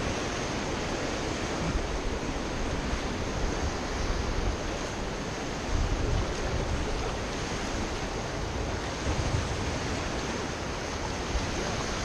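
Fast, muddy river water rushing and churning around an inflatable raft, a steady roar with wind buffeting the microphone in low gusts.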